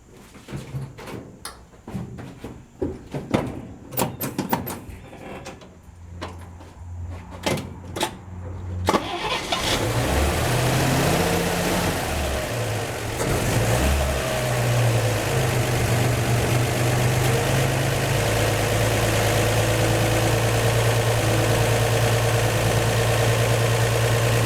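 1954 Chevrolet 235 inline-six engine cranking for several seconds, then catching about nine seconds in, stumbling and revving briefly before settling into a steady idle. A new exhaust donut gasket is freshly fitted at the front Fenton cast-iron header, and the owner judges the exhaust leak cured.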